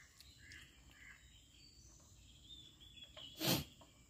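One short loud knock about three and a half seconds in, as a small dog eats dry kibble from a stainless steel bowl. Before it, a run of short high chirps about twice a second, over a faint steady high whine.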